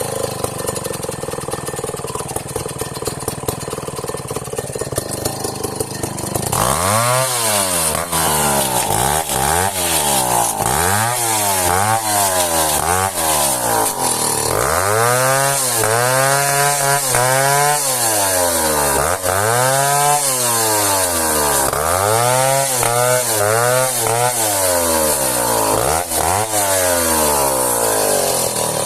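Two-stroke chainsaw running at a steady speed, then from about six seconds in its engine speed rises and falls over and over, about once a second.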